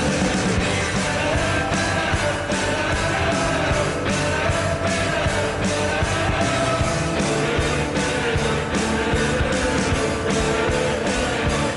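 Rock goal song with electric guitar, singing and a steady beat, played after the Indy Fuel's goal horn.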